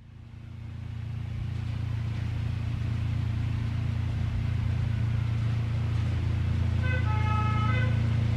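Miniature ride-on diesel-outline locomotive running with a steady low hum that grows louder as it approaches. A brief cluster of higher tones sounds near the end.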